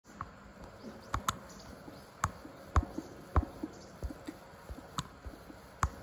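A string of irregular sharp clicks and knocks, roughly one or two a second, over a faint steady hiss.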